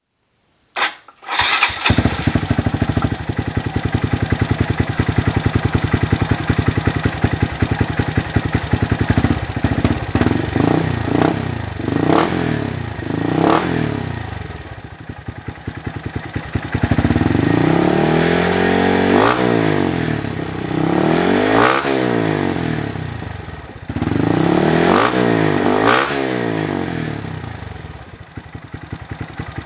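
2019+ Honda Monkey's 125 cc single-cylinder four-stroke engine through a Termignoni full exhaust, starting about a second in and settling to idle. It then takes a few quick blips of the throttle, followed by three longer revs that rise and fall, dropping back to idle between them.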